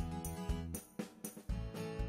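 Background music with a steady beat and bass; it drops away briefly a little under a second in and comes back about a second and a half in.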